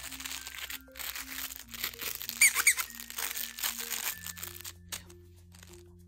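A plush squeaky toy being crinkled and squeezed, with a crackling rustle that stops near the end and two sharp squeaks about two and a half seconds in, over light mallet-percussion background music.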